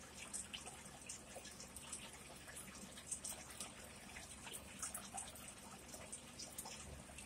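Faint, wet chewing: a person eating pizza with the mouth closed, with soft scattered clicks and smacks.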